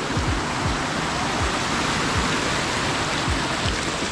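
Steady rushing of muddy rainwater tumbling down a small hillside cascade into a brimming irrigation channel, swollen by heavy monsoon rain.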